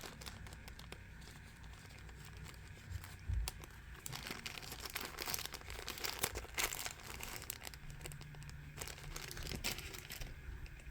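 Plastic packaging being handled, crinkling and rustling, with many small clicks; busiest from about four seconds in until near the end.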